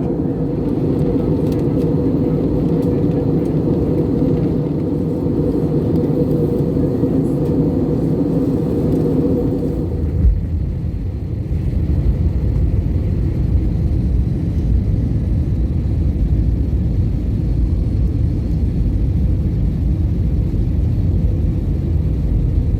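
Cabin noise of an Airbus A320-family airliner taxiing after landing: a steady engine hum with a held tone. About ten seconds in there is a brief thump, and the sound turns into a heavier, lower rumble.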